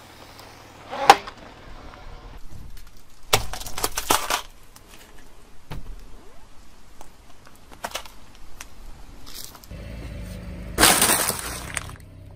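Car tyre rolling slowly over small objects and crushing them one after another: a sharp crack about a second in, a cluster of crunches a little later, scattered small cracks, then a longer burst of crunching near the end over a low engine hum.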